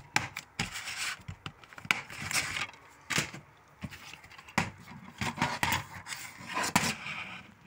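Plastic DVD cases being handled: one laid down on a table and another picked up, with scattered clicks, knocks and rubbing of plastic.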